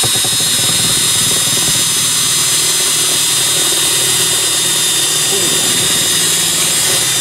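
Cordless drill running steadily at full speed, its bit boring a bolt hole through aluminium, a high steady whine over a hiss.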